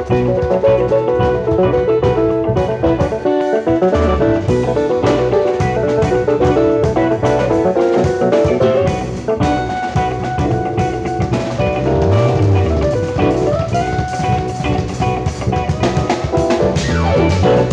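Live band jam: a drum kit played busily, with fast fills and cymbal hits, over pitched instruments and a bass line.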